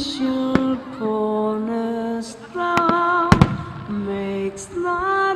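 Slow music with a sung melody of long held notes, playing for a fireworks starmine, with a few firework bursts cracking through it: one about half a second in and a louder cluster of bangs around the middle. The recording is heavily distorted.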